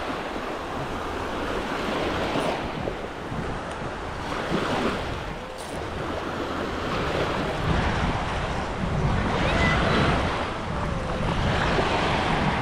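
Waves washing onto the shore in a steady wash that swells and eases, with wind buffeting the microphone.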